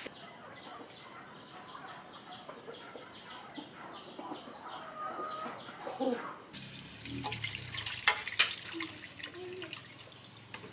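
Birds chirping, with one short high chirp repeating about three times a second. After about six and a half seconds, broth is poured through a metal strainer into a pot, a steady splashing rush with two sharp clinks.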